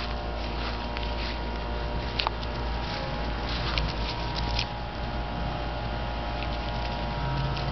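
Welsh Corgi puppy scuffling and scrambling on dry grass and leaves, with a sharp click about two seconds in and a run of crisp rustles near the middle as it gets up and goes after the ball. A steady low hum lies underneath.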